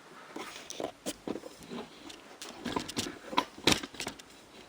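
Oven door parts being handled for reassembly: irregular light clicks, taps and knocks, with two sharper knocks a little after three seconds in.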